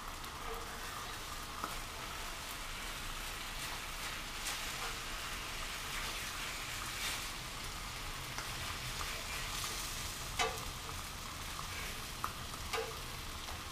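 Thin-cut pork chops sizzling on a Blackstone flat-top griddle: a steady frying hiss. A few light clicks of a metal utensil against the griddle come through as a chop is cut open to check that it is cooked through.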